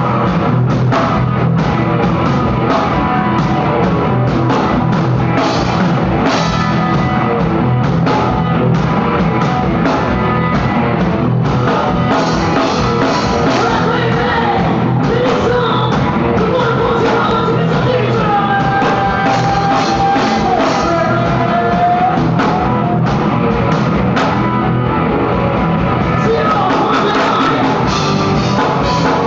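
Loud rock music played live on stage, with a drum kit beating steadily and a woman singing into a microphone.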